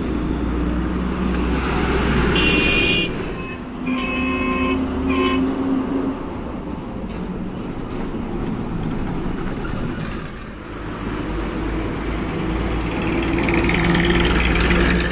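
Diesel trucks, among them a Tata SE, rumble past in street traffic. Vehicle horns honk a few times between about two and five seconds in. The engine sound swells to its loudest near the end as a truck passes close.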